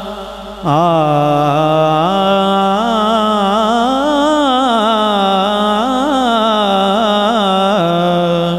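A man's voice singing a long, drawn-out, wavering melodic line of a manqabat into a microphone. After a short dip at the start, the voice comes in strongly about a second in. It holds and bends its notes, ending on a steady held note near the end.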